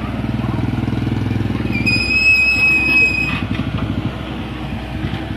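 A vehicle engine running close by, a steady low rumble with a fast even pulse. About two seconds in, a high steady tone sounds for about a second and a half.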